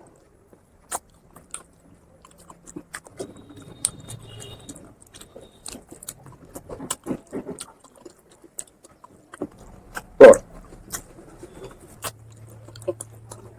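Close-miked eating sounds: chewing and biting with scattered sharp clicks, and one louder short sound about ten seconds in.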